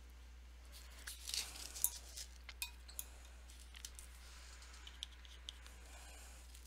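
Light clicks and clinks of paintbrushes and small tools handled on a glass-topped painting table, clustered about one to three seconds in, then a few scattered ticks.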